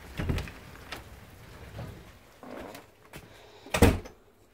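A house door shutting with a single loud thump near the end, after a few lighter knocks and steps.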